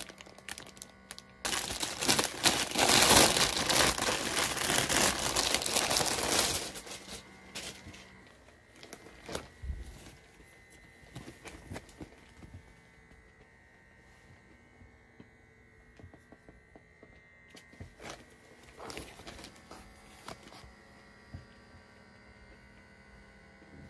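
Crinkling and rustling handling noise, loud for a few seconds near the start, then faint scattered clicks and taps.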